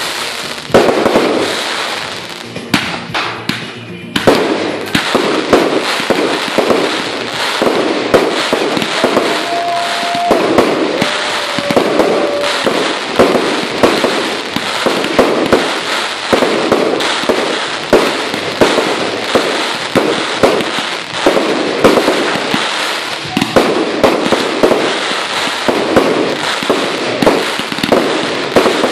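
Fireworks display: a rapid, nearly continuous barrage of bursting shells, bang after bang.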